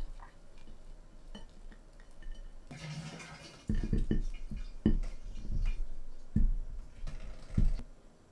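Soft knocks and light clinks of baked tofu pockets and cherry tomatoes being set by hand onto a ceramic plate. A brief rustle comes about three seconds in, then several separate knocks follow over the next few seconds.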